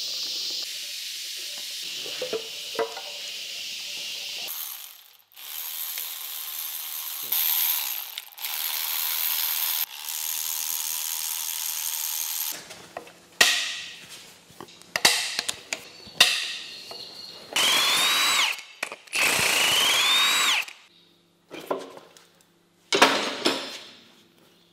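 Power tool driving a socket on a long extension to spin out the rocker-arm bolts on a Holden 304 V8's cylinder head, a step in stripping the engine down. It runs steadily twice for several seconds, then in a string of short trigger bursts, the motor's whine rising and falling on two of them near the end.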